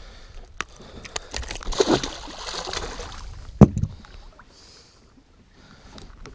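Small northern pike splashing at the surface beside the boat as it is worked off the lure. About three and a half seconds in there is a single sharp knock, the loudest sound.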